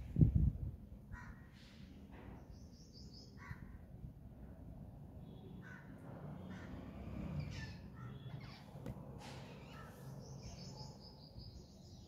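Crows cawing several times in the background, with a quick run of high bird notes heard twice. A short loud low thump right at the start.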